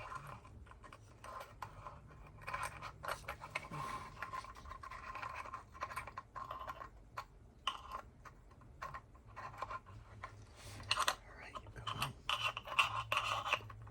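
Irregular scraping, rubbing and small clicks of hands working a fiddly cap on a flashlight, with a faint steady low hum underneath.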